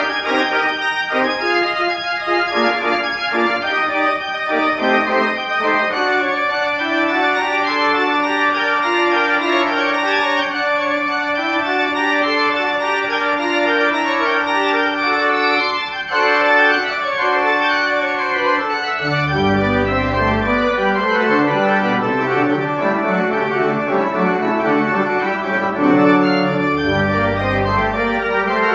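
Church pipe organ playing a full, sustained piece. A middle note is held from about six seconds in, with no bass underneath. Deep bass notes come back in at about nineteen seconds.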